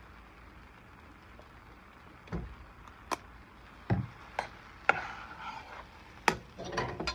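A metal spoon stirring fried rice in a large pan: after a couple of quiet seconds come a few sharp knocks and a low thud, then scraping and clinking against the pan as the rice is turned over.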